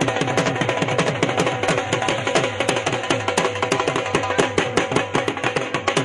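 Music driven by fast, dense drumming, with low drum strokes that slide down in pitch several times a second.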